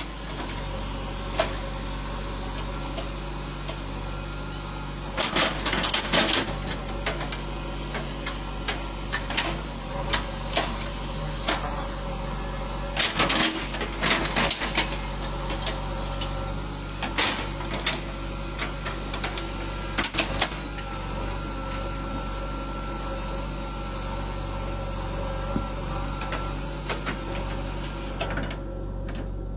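JCB backhoe loader's diesel engine running steadily while its backhoe bucket digs, with several spells of knocking and clatter as the bucket strikes and scrapes soil and stones. A thin high whine holds for several seconds in the second half.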